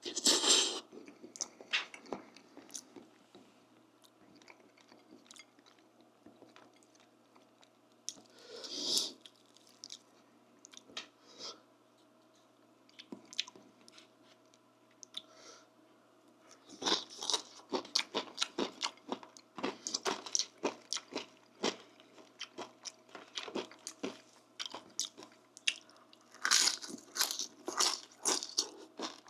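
Close-miked eating with lip smacking: a person biting and chewing crunchy food. There is a loud crunch at the start and another about nine seconds in, with quieter chewing between, then fast, steady crunching chews through the last twelve seconds.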